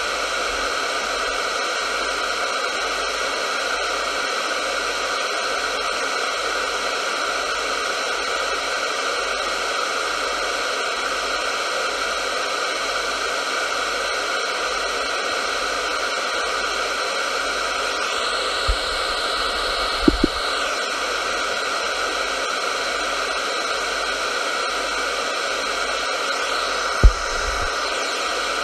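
Radio static: a steady hiss, with a few brief pops about two-thirds of the way through and once more near the end.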